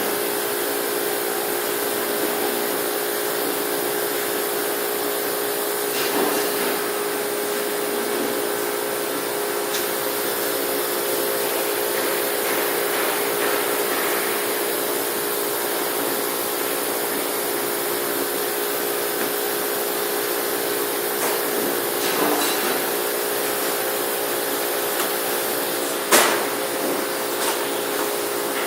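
CNC laser cutting machine running: a steady hiss with a constant hum underneath, a few light clicks, and one sharp clack about 26 seconds in.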